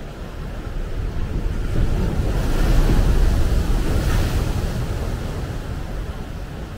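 Ocean surf: a wave breaks against shoreline rocks and washes up a sand beach. The rush swells from about a second in, is loudest around three to four seconds, then fades as the water runs up the sand.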